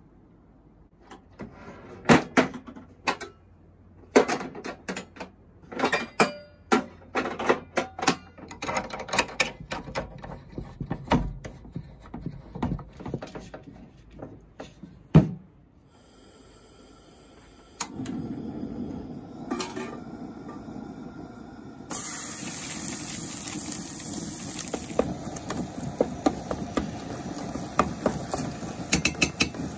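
Knocks and clatter of camp cooking gear being handled while a propane canister is fitted to a camp stove, then a steady hiss that starts suddenly. From about two-thirds of the way in, ground meat sizzles in a steel pot as a wooden spoon stirs and scrapes it.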